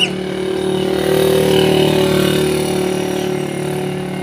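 Motor vehicle engine running steadily, growing louder over the first couple of seconds and then easing off, like a vehicle passing on the road. A brief sharp high chirp sounds at the very start.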